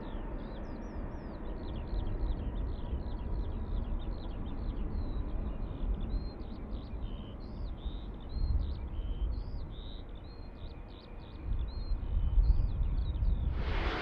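Small birds chirping and whistling over a low, gusting rumble. Near the end the roar of an approaching airliner's jet engines swells up.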